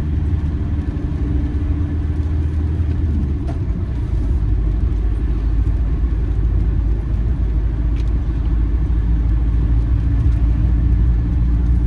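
Campervan driving along the road, heard from inside the cab: a steady low engine and road rumble that gets a little louder about four seconds in.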